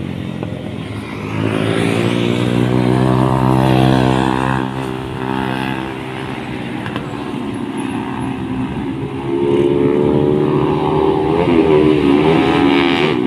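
Motorcycle engines running and revving as bikes ride past, the sound swelling twice and wavering up and down in pitch near the end.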